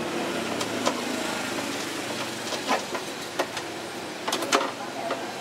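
Scattered sharp clicks and taps of a screwdriver and screws against a mini stereo system's plastic back casing, with a quick cluster of the loudest ones near the end, over a steady engine-like drone in the background.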